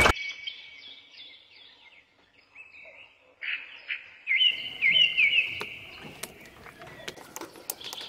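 Small birds chirping in a series of short calls with quick rises and falls in pitch, loudest in the middle. A loud motor noise cuts off abruptly at the very start, and a few light clicks come near the end.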